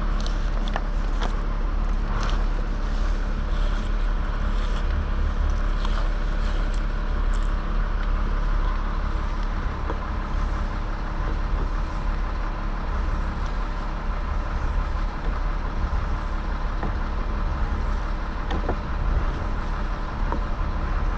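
A motor running steadily at low idle, with a few faint clicks and knocks over it.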